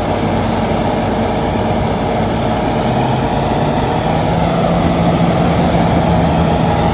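Combine harvester running steadily at work: a constant engine drone under the rushing noise of the machinery, with a thin high whine held steady over it.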